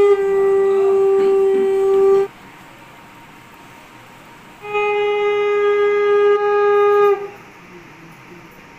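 Conch shell (shankha) blown in long, steady blasts: one held note ends about two seconds in, and a second runs from about five to seven seconds, dipping slightly in pitch as it stops.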